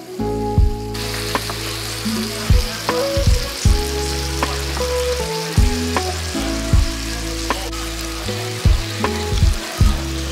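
Thin-sliced beef and shimeji mushrooms sizzling in a hot sukiyaki pot, the sizzle starting about a second in and holding steady, over background music.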